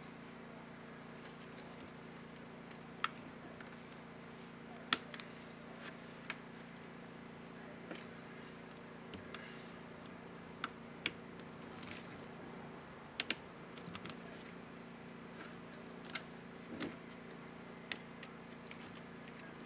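Irregular small plastic clicks from an Asus X550C laptop keyboard's spacebar keycap being handled, fitted and pressed onto its clips, over a steady low hum.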